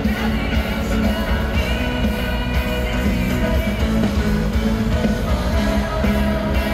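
Live pop-rock band playing through an arena PA: a woman singing over drums, electric guitars and keyboards, heard loud from the crowd.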